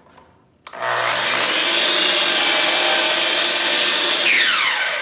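Milwaukee sliding mitre saw motor starting up under a second in, its blade cutting through MDF crown moulding, then the motor switching off and the blade winding down with a falling whine near the end.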